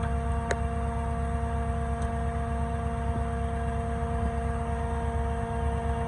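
Concrete line pump's engine running steadily, a constant low drone with a steady hum over it, and a short click about half a second in.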